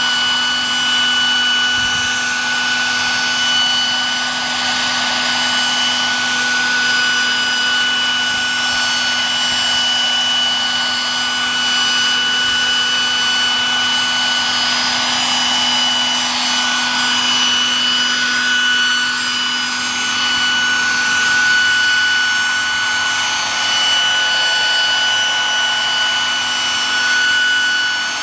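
Radio-controlled MD900 scale model helicopter hovering, its motor and rotors giving a steady whine over a rushing whoosh.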